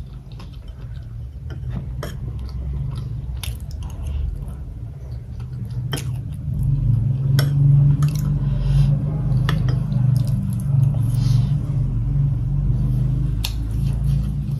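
Close-miked chewing of a mouthful of food, with wet mouth clicks and smacks over a low chewing rumble that grows louder about halfway through.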